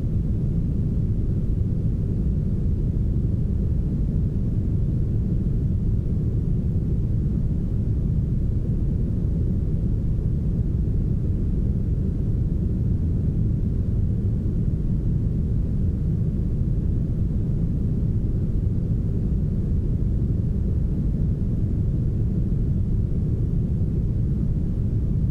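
Steady, smoothed brown noise: a soft, deep, even rush with its weight in the low end and almost nothing in the highs.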